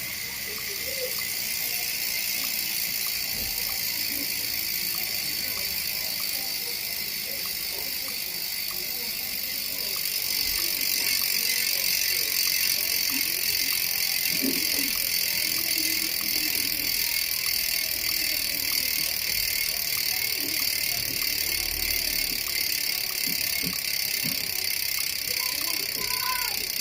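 Sagmit V12 ratchet-type rear bicycle hub freewheeling, its ratchet giving a steady, high-pitched buzz that gets louder about ten seconds in.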